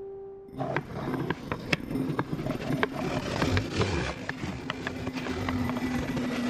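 Sound-effect foley for glass on stone: scraping and rumbling with many sharp clicks and knocks, made by knocking glass salt shakers on a marble serving tray. It starts about half a second in, where a held horn-like note cuts off, and a low steady tone runs under it from about two seconds in.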